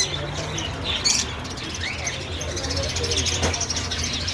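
Small parrots chirping and chattering together, many short calls that rise and fall in pitch. There is a sharp noise at the start and another about a second in.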